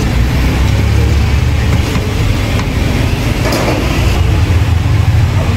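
A steady low rumble runs under a few faint knocks of a knife on a wooden cutting board as beef is sliced, the clearest about three and a half seconds in.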